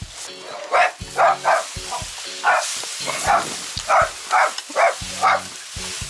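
Short, sharp animal calls repeated about twice a second.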